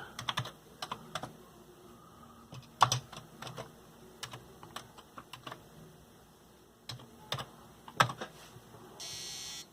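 Keys of a Commodore 64 keyboard being typed, irregular separate clicks, as a load command is entered. Near the end a steady electronic buzz starts.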